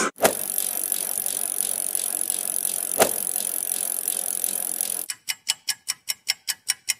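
A steady hiss with two sharp clicks, then a fast, even run of ticks, about five a second, starting about five seconds in.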